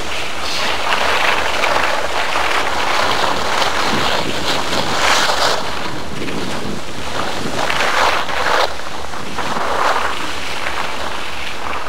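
Wind rushing over the microphone, swelling and easing every few seconds, over a low steady hum.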